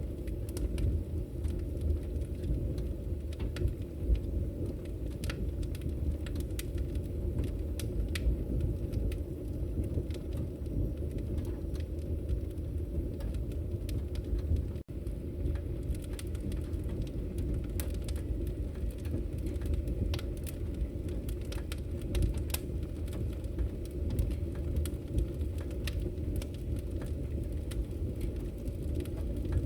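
Wood fire burning: a steady low roar with scattered sharp crackles and pops from the burning logs.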